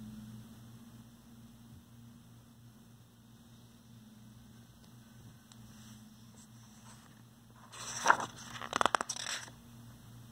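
A faint steady low hum, then about eight seconds in a short burst of paper rustling and scraping as the picture book's pages are handled before a page turn.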